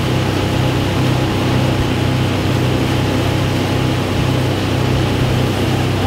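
Motorboat engine running steadily with the boat under way, a constant low hum under a steady rush of wind and water noise.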